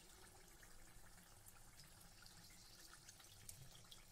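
Very faint crackle of hot oil frying a naan puri in a kadai, little more than near silence, with scattered faint ticks.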